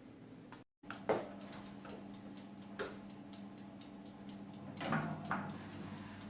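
Scattered light clicks and a few louder knocks over a steady low hum, with a brief silent drop-out just before a second in.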